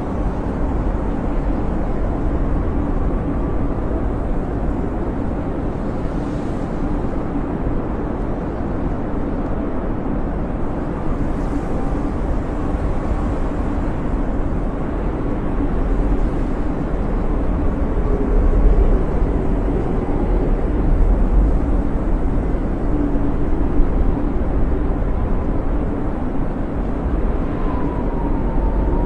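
Snowstorm wind blowing steadily: a deep, constant rushing noise with faint high whistles that waver up and down in pitch.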